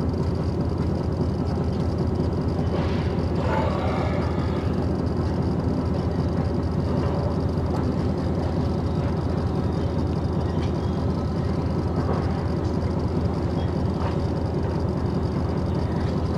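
Truck engine idling, a steady low rumble heard from inside the cab.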